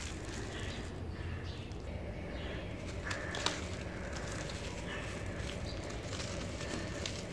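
Dry, crumbly charcoal-and-soil mix crumbled and sifted by hand, a soft grainy rustle of falling crumbs, with a moulded lump of it gripped in the hands. A single sharp crack comes about three and a half seconds in.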